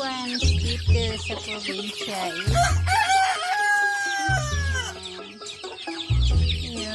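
Chickens clucking and calling, with a rooster crowing in one long call about three seconds in. Background music with a low beat about every two seconds runs underneath.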